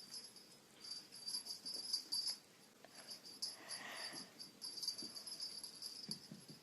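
Faint sounds from a pet dog, with scattered soft ticks and scratches and a brief hiss about four seconds in.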